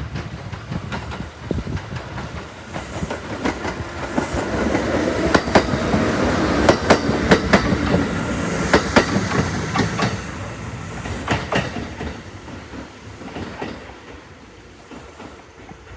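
Kintetsu 'Kagirohi' charter train, a converted 12200-series electric multiple unit, passing by: a rumble that grows louder to a peak about halfway, with the wheels clicking over rail joints, then fading away.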